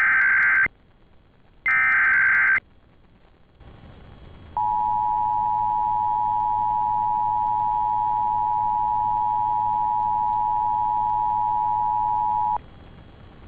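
Emergency Alert System SAME header: the end of one harsh data burst and then a final burst about a second and a half in, each about a second long. After a faint hiss, the two-tone EAS attention signal sounds steadily for about eight seconds and cuts off suddenly.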